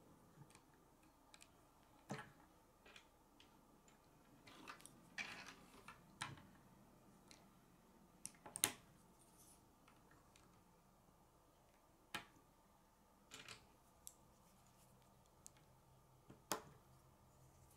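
K'nex plastic rods and connectors clicking and snapping into place as pieces are fitted together, a sharp click every few seconds, with a cluster of small clicks around five seconds in and the loudest snap about nine seconds in.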